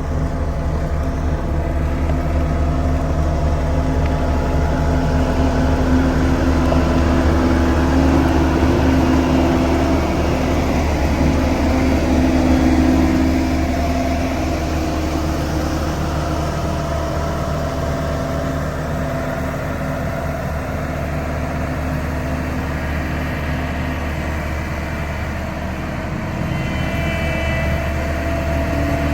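Heavy diesel engine of road-construction machinery running steadily under load, growing a little louder for several seconds before easing back.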